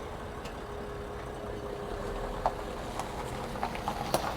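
Construction-site background: a steady engine hum that fades out, then a few sharp knocks in the last couple of seconds.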